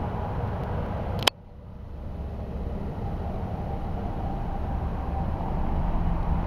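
Steady low outdoor background rumble and hiss. A single sharp click comes a little over a second in, after which the sound drops away and then builds back over the next second or so.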